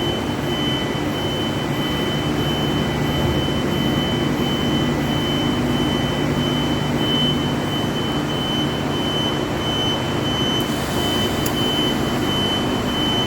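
Argon (TIG) welding equipment running: a steady hiss over a low hum, with a thin high whine held at one pitch throughout.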